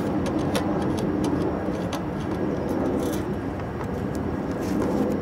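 A steady, low mechanical rumble with a faint hum, like an engine running, and a few light clicks over it.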